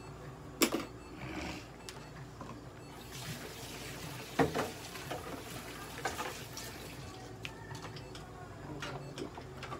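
Handling noises around a stainless-steel exam table: two sharp knocks, about half a second in and again about four and a half seconds in, and a rustling hiss from about three to seven seconds, over a steady low hum.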